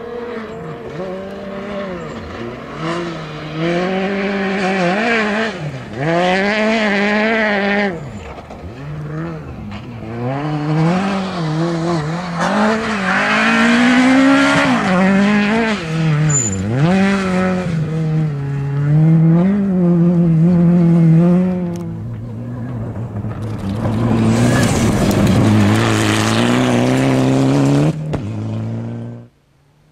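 Rally cars at full effort on a loose dirt stage, engines revving high and dropping back repeatedly through gear changes and lifts, with tyres scrabbling on gravel. The sound cuts abruptly from one car to the next a few times, and drops away suddenly near the end.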